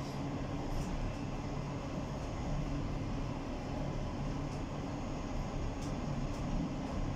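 Steady rumble of a moving train heard from inside its last car: wheels running on the rails, with a low steady hum.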